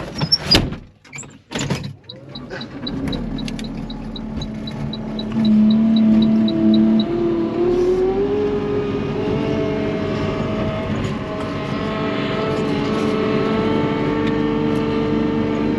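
A few sharp knocks, then a vehicle engine running, with a high chime ticking about three to four times a second for several seconds. The engine rises in pitch as it pulls away, then runs steadily.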